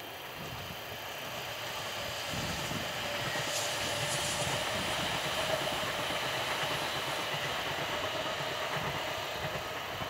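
Nankai 6250-series electric train on a test run with its renewed VVVF inverter drive, passing close by. It grows louder over the first few seconds, then holds as a steady rolling rumble with a steady whine running through it.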